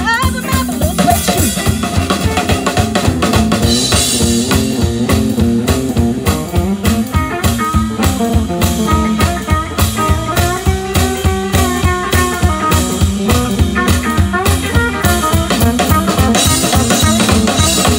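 A live band playing an instrumental stretch: electric guitar lines over electric bass and a drum kit keeping a steady, driving beat.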